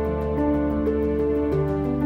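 Instrumental background music: held notes that change pitch every half second or so, over a light, quick ticking beat of about six ticks a second.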